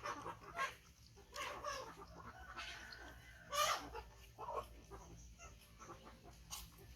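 A baby monkey giving several short, high whimpering calls, the loudest about three and a half seconds in.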